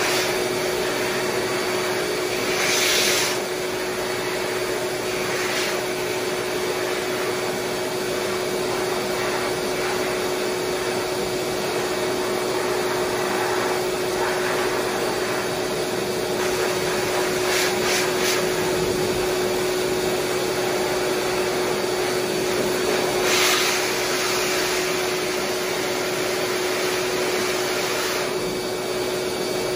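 High-velocity dog grooming dryer blowing air through its hose onto a thick coat. It makes a steady rush of air over a constant motor hum, swelling briefly a few times.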